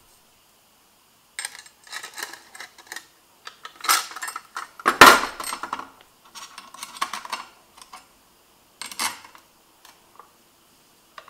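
Metal parts of a bottle glass cutter clinking, rattling and knocking in irregular bursts as its angle bracket is turned around and refitted on the steel base plate. The loudest knock comes about five seconds in.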